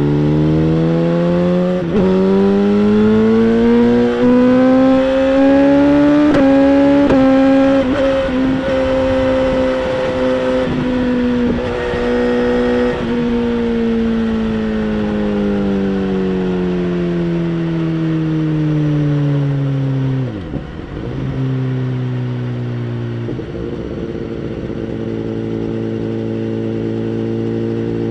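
2011 BMW S1000RR inline-four with a Bodis aftermarket exhaust, heard onboard as the bike accelerates: the engine pitch climbs over the first eight seconds with short breaks at the gear changes, then holds steady. It then winds down as the bike slows, dips briefly about two-thirds of the way through, and settles into a steady, lower-rev run near the end.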